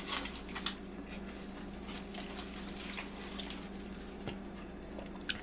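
Faint scattered clicks and taps of things being handled, over a steady low electrical hum.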